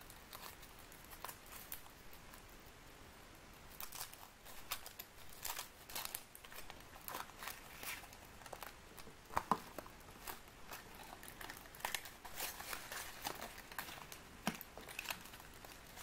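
Thin foil wrapper of a chocolate surprise egg crinkling and tearing as it is peeled off by hand, in many small crackles that grow busier about four seconds in. A few sharper cracks come as the thin chocolate shell is broken open, the loudest about nine and a half seconds in.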